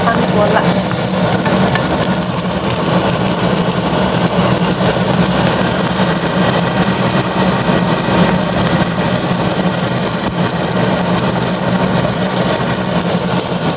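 Buns frying in hot oil in a pan on an induction cooktop: a steady sizzle over the hob's steady hum, with a wooden spatula turning the buns.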